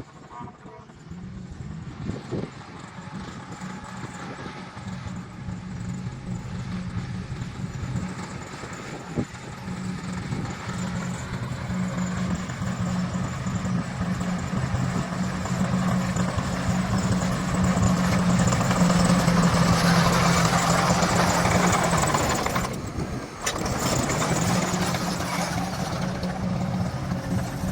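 Bulldozer's diesel engine running steadily, getting louder over the first twenty seconds, with a brief dip about five seconds before the end.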